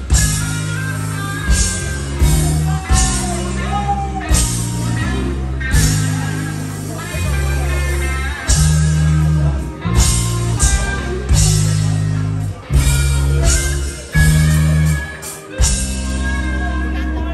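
Live rock band playing loud: guitar and bass chords over drums with cymbal crashes, breaking off briefly a few times in the second half.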